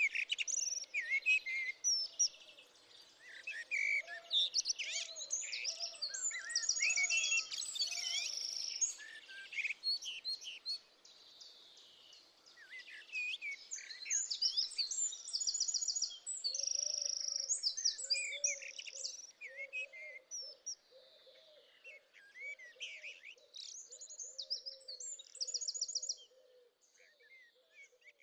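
Songbirds singing and chirping, with many overlapping quick chirps and rattling trills. A lower call repeats steadily underneath, mostly in the second half.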